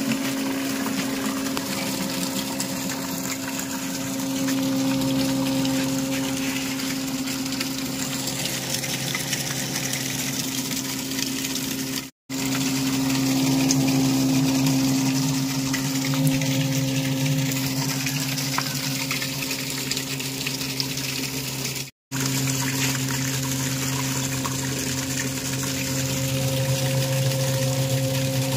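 Homemade centrifugal water pump driven by a 12-volt 775 brushed DC motor, running steadily with a steady motor whine over the splashing of water gushing from its outlet pipe. The sound drops out twice for a split second.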